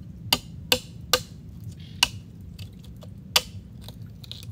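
A machete blade knocking sharply against an oyster shell on a mangrove log, five hard cracks at an uneven pace, as the oyster is hacked open.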